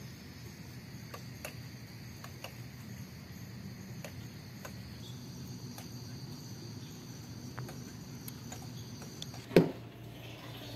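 Outdoor insects trilling steadily in a high, even tone over a low background rumble, with scattered faint ticks. Near the end a single sharp knock, and the insect sound cuts off.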